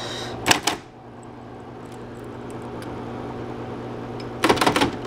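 Smith-Corona Coronet Super 12 electric typewriter's motor humming steadily. A couple of sharp clicks come about half a second in, then a quick run of typebar strikes near the end.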